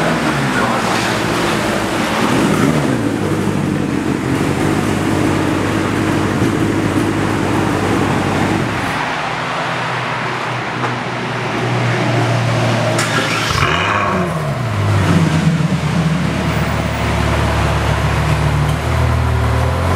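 Ferrari F12berlinetta's 6.3-litre V12 idling fast just after start-up, then settling to a lower, steady idle about nine seconds in. It gives one short rev around fourteen seconds.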